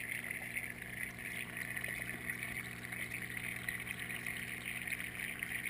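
Small pump-fed stream in a paludarium trickling steadily, with a low steady hum underneath.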